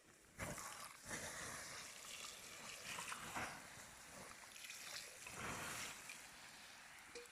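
Water splashing and sloshing in irregular swells, starting about half a second in.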